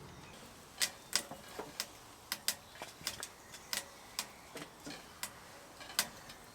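Sparse, irregular sharp clicks and ticks, two or three a second, over a quiet background.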